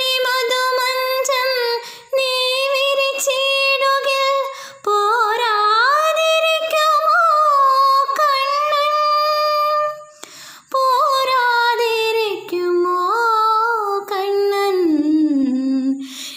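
A girl singing a Malayalam devotional song to Krishna solo and unaccompanied, in long held notes with sliding ornaments, breaking off for a breath about two seconds in, about five seconds in and again about ten seconds in.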